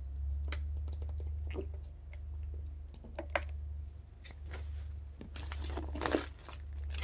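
Steady low electrical-sounding hum with scattered small clicks and rustles, a sharper click about three seconds in: handling noise picked up by an open microphone on a video call.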